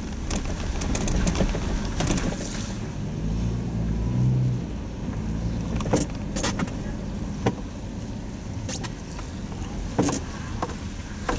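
A car's engine and road noise heard from inside the cab while it drives slowly. The engine note swells briefly about three seconds in, and a few sharp clicks and knocks come at uneven intervals in the second half.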